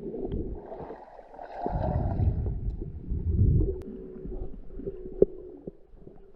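Muffled underwater sound picked up by a submerged camera: low rumbling and gurgling of water moving around it, with a faint steady hum and a few sharp clicks, the loudest about five seconds in.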